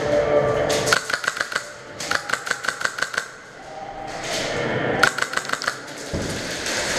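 Airsoft guns firing on full auto: three bursts of rapid clicking shots, about ten a second, the second burst the longest.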